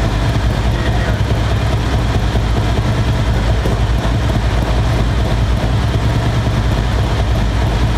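Harley-Davidson Road Glide Special's Milwaukee-Eight V-twin idling steadily on its newly installed Screaming Eagle torque cam.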